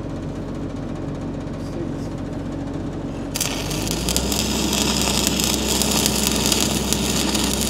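A machine hums steadily. About three and a half seconds in, a stick-welding arc strikes and crackles and hisses steadily as a hot pass is run with a 5 mm rod over a repaired blowout. Just after the arc strikes, the hum gets deeper and stronger as the machine takes the load.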